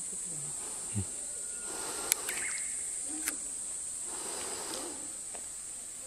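Steady high-pitched drone of insects in the surrounding woodland. Faint voices can be heard underneath, and two sharp clicks come about two and three seconds in.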